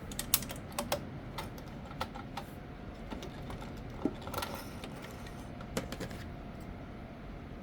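Irregular clicks and light knocks as the sewn fabric is taken out of a vintage all-metal Kenmore sewing machine, the machine's parts and the cloth being handled by hand rather than the machine running. The sharpest clicks come in the first second.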